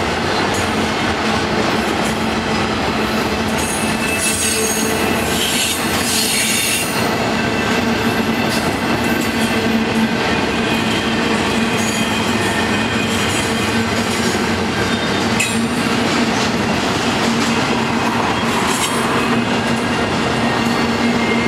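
The trailer flatcars and double-stack container cars of an intermodal freight train roll past with a loud, steady rumble of wheels on rail. High-pitched wheel squeal comes and goes, strongest about four to seven seconds in.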